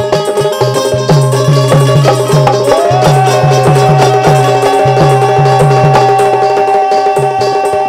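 Bundeli folk music: a harmonium drones steadily under regular drum beats, about two or three a second. About three seconds in, a male voice slides up and holds one long sung note.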